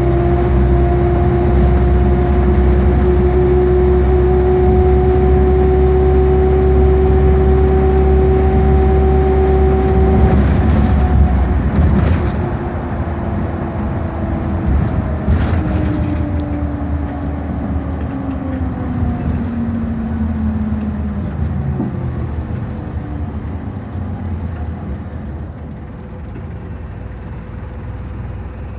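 Bus engine and drivetrain heard from inside the passenger cabin: a deep rumble with a steady whine that creeps up in pitch while the bus cruises. About twelve seconds in the rumble drops, and the whine then slides down in pitch and the sound grows quieter as the bus slows, with a couple of sharp knocks along the way.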